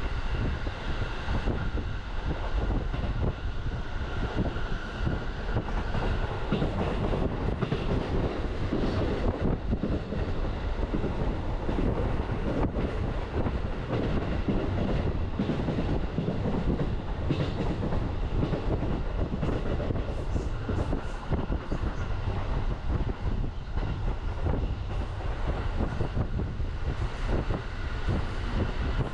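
Utsunomiya Line electric commuter train running at speed, heard from inside the carriage: a steady rumble of wheels on the rails with a continuous run of short clicks and rattles from the track.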